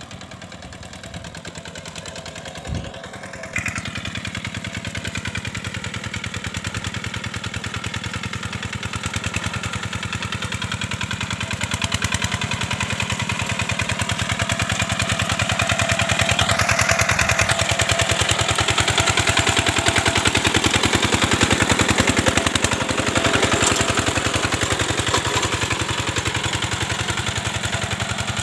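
Two-wheel hand tractor's single-cylinder diesel engine running steadily under load as it pulls a harrow through a flooded rice paddy, with a fast, even beat. It grows louder as the tractor comes close, loudest about two thirds of the way through.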